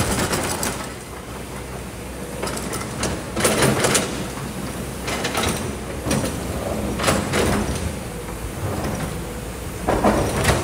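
Kobelco hydraulic excavator's diesel engine running steadily while its bucket digs and scrapes through sand and stones, giving repeated gritty scraping crunches every second or two.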